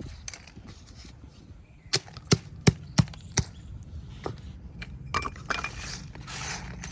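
Unglazed clay kulhad cups being broken: five sharp cracks in quick succession about two to three and a half seconds in, then a gritty crunching as the pieces are crushed near the end.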